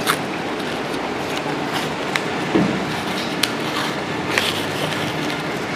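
Hands handling rolled paper tissue and paper tape: a few light rustles and short clicks over a steady room hum.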